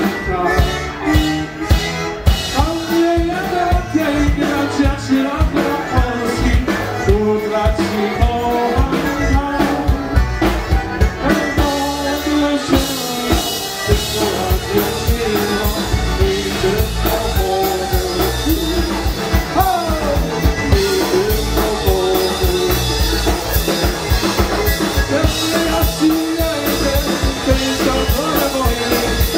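Live polka band playing a medley: trumpet, squeezebox, electric bass and drum kit, with a singer, in one continuous loud stretch of music.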